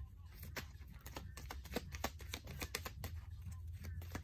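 Cards being handled and laid out on a table: a quick irregular run of small clicks and taps, about three or four a second, over a steady low hum.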